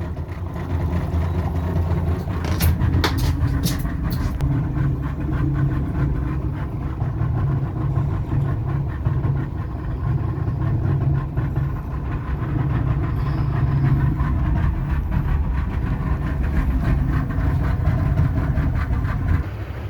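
Boat engine running steadily with a low drone, heard from aboard the vessel. A handful of sharp clicks come about three seconds in.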